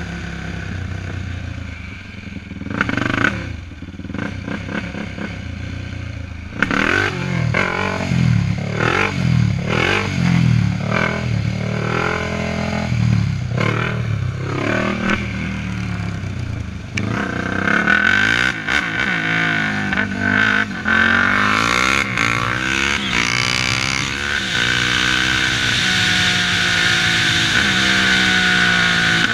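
Single-cylinder four-stroke sport quad engine running on the road. It starts quieter, then about a third of the way in revs up hard over and over, with short breaks at each gear change. In the second half it holds speed under a steady rushing hiss.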